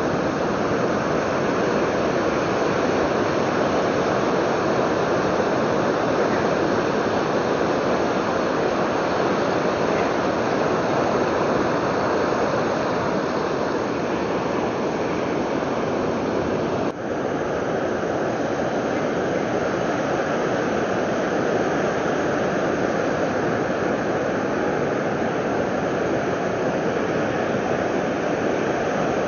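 Surf on a sandy beach: a steady, continuous wash of breaking waves. The sound dips briefly and changes slightly partway through.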